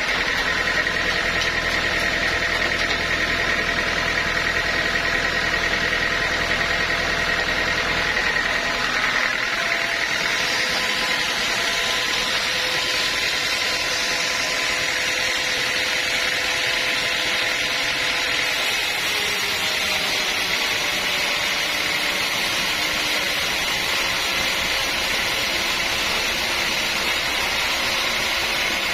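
Sawmill machinery running steadily, with a steady high whine over the mechanical noise; a low hum drops away about nine seconds in.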